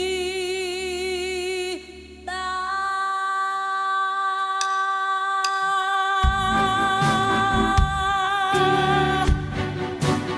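A woman singing long held notes with vibrato into a microphone, over a steady low chord. About six seconds in the full band comes in with drums and cymbal crashes.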